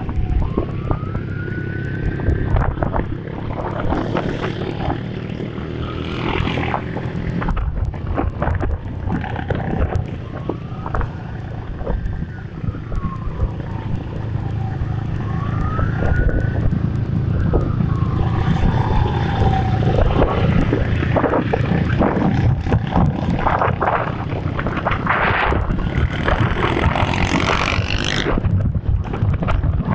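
A siren wailing in slow rising and falling sweeps, a few times over, above the steady low drone of motorcycle engines running on a group ride, with wind buffeting the microphone.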